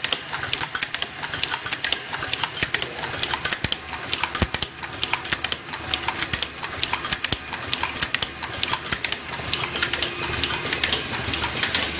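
Automatic zipper slider mounting machine running, a fast, irregular stream of mechanical clicks and clatter as it mounts sliders onto zipper chain.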